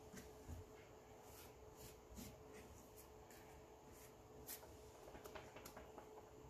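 Near silence: faint scattered small clicks and rubs from handling craft materials at a table, over a faint steady hum.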